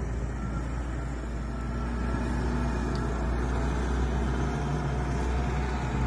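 Wheel loader's diesel engine running steadily as it pushes snow with its front blade, a constant low rumble.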